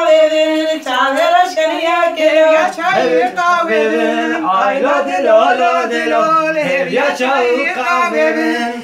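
Several voices singing a line-dance song together without instruments, with long held notes that bend in pitch and overlapping voices part way through.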